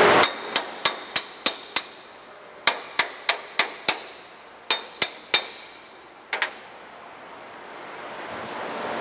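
A light hammer tapping steel pins into the steel pin bar of a Forrest Model 214 bandsaw table. The metal-on-metal taps are sharp and ringing, about three a second, in three quick runs followed by a double tap.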